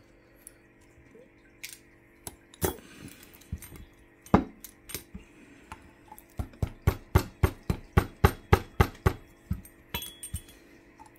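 Small metal engine parts and tools clinking and tapping on a workbench: scattered sharp clicks, then a quick even run of about five taps a second for around three seconds past the middle.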